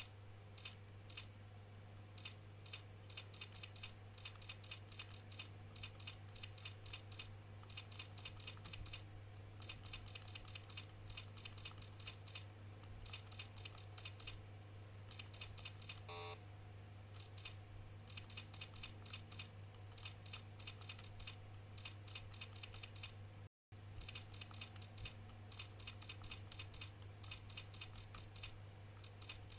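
Keyboard typing in quick runs of key clicks with short pauses between them, over a steady low hum.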